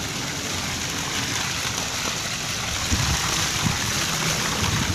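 Swimming-pool water: a steady rushing hiss, joined about three seconds in by choppier low splashing as a swimmer pushes off and glides through the water.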